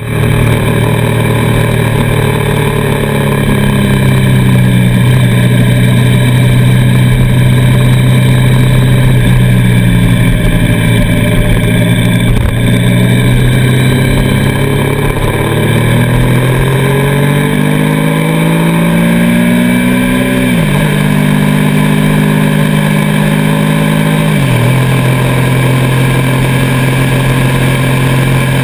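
A road vehicle's engine running under way, its pitch wandering slowly up and down and then climbing before dropping sharply twice, about twenty seconds in and again four seconds later, as it shifts up a gear.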